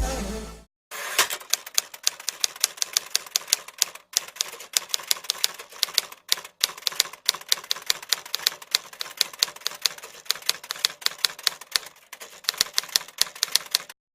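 Rapid typewriter keystroke clicks, about five a second, breaking off briefly a few times.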